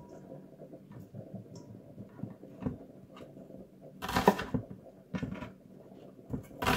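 A cleaver chopping through an onion onto a wooden cutting board: quiet handling at first, then three sharp chops, the first and loudest about four seconds in.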